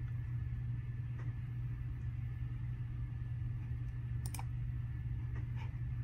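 A few soft clicks on the laptop, three in all with the loudest in the middle, over a steady low hum.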